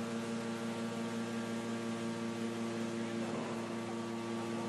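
Hydraulic deep-drawing press running, a steady multi-tone machine hum from its pump and motor. About three and a half seconds in the tone shifts and a higher whine joins.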